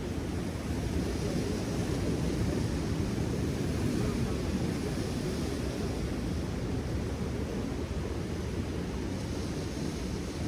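Steady low rumble of wind on the microphone mixed with ocean surf along a rocky shore.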